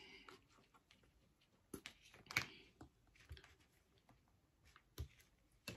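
A handful of faint, irregular clicks and taps of objects being handled, over near silence.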